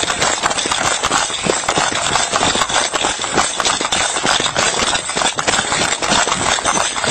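Running footsteps crunching on the gravel ballast of a railroad track, with a body-worn camera rubbing and rattling against clothing at each stride.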